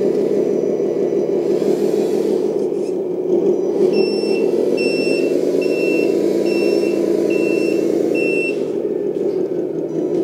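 1/14 LESU 8x8 RC truck driving with a steady low hum. About four seconds in, an electronic reversing alarm beeps six times at an even pace.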